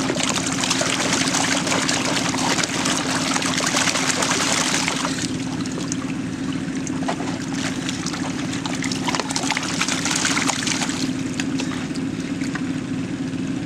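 Water sloshing and splashing as a plastic gold pan is dipped and swirled in a tub of muddy water, loudest in the first five seconds and again around ten seconds in. A steady engine hum runs underneath.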